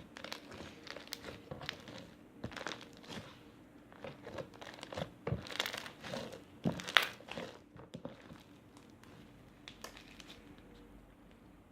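Foam bead slime being squished and kneaded by hand, the foam beads crackling and popping in quick irregular bursts; the crackling dies away about eight seconds in.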